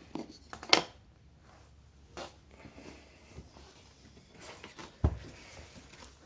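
Toy train track pieces being handled and fitted together: a few sharp clicks, the loudest under a second in, and a knock with a low thud about five seconds in.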